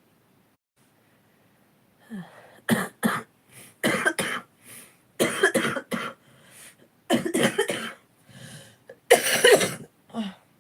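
A person with a chest cough, coughing in a series of short fits, starting about two seconds in and loudest near the end.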